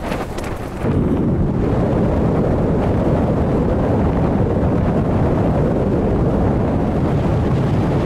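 Wind buffeting the microphone: a steady, loud, low rumble that starts abruptly about a second in, after a few light knocks.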